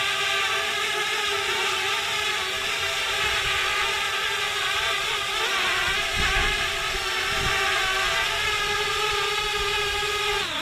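Parrot Bebop 2 quadcopter's motors and propellers whining steadily in flight, with a brief dip in pitch near the end as it comes in to land.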